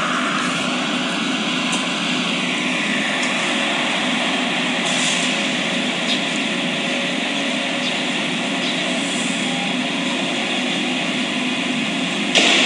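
Steady outdoor background noise with a live band concert faintly leaking out from the stadium. The music is heard from outside, far off and muffled.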